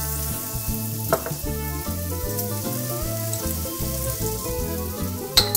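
Diced shallots and garlic sizzling in hot olive oil in a frying pan, with background music underneath.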